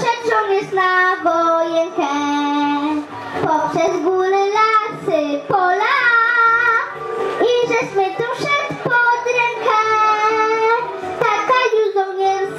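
A young girl singing a song into a microphone over backing music, holding and gliding between notes.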